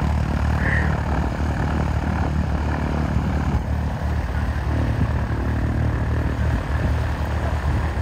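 Engine of a high-wing single-engine propeller plane idling steadily on the ground, a low, even hum.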